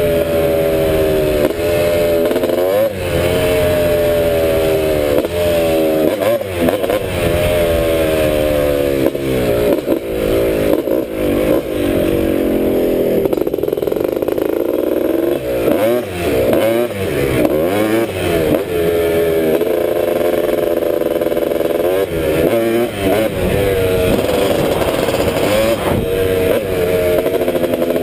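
1986 Honda ATC250R's two-stroke single-cylinder engine under way, revving up and dropping back again and again as the rider works the throttle and shifts gears. Around the middle the revs fall and swing up and down briefly before it pulls hard again.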